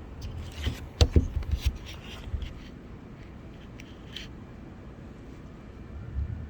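Hard plastic steering-column switch assemblies (headlight and wiper stalks) being handled and turned over: a quick run of sharp clicks and knocks in the first couple of seconds, then faint handling noise.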